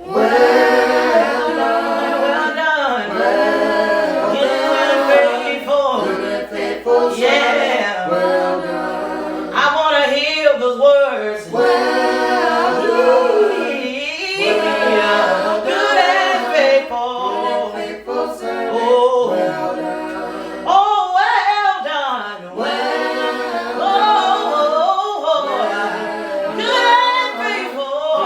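A cappella gospel singing by a group of voices, with long, bending sung lines and no instruments.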